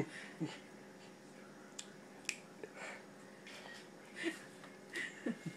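A baby eating chocolate cake with her fingers: a few soft, scattered wet smacks and clicks of mouth and sticky hands.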